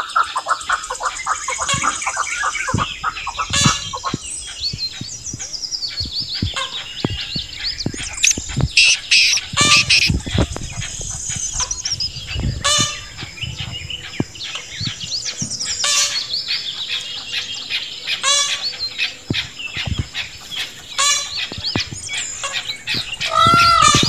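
A mix of bird calls: many short high chirps and sweeping whistles with scattered sharp clicks. Near the end a loud, repeated arching call starts, about three a second.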